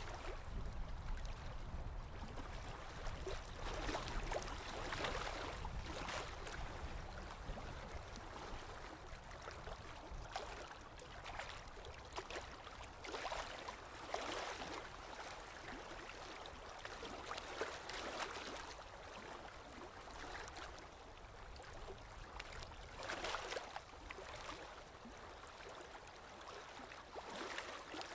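Water flowing and splashing continuously, rising in irregular swells every few seconds.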